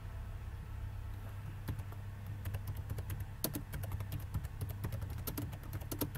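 Typing on a computer keyboard: keystrokes start about a second and a half in and come in quick, irregular runs, over a steady low hum.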